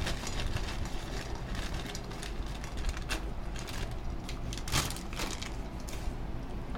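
A paper bag crinkling and rustling as black raisins are shaken out of it onto a plate, with the raisins pattering down. Two sharper crackles stand out, about three seconds in and near the five-second mark.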